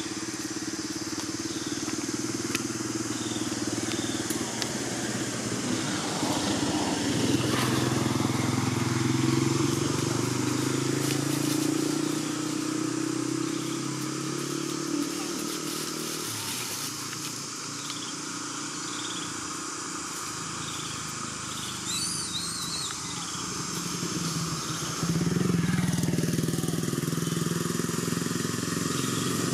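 An engine running steadily, its pitch shifting a few times, with faint high chirps repeating about once a second.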